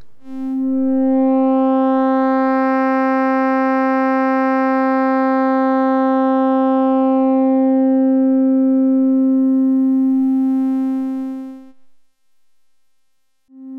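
A steady synthesizer tone, a sawtooth wave run through a Serge Triple Waveshaper, as its input attenuator slider is swept. The pitch holds while the tone grows brighter and buzzier over the first few seconds, then mellows back toward a plain sine-like hum. The tone drops out about twelve seconds in and comes back just before the end.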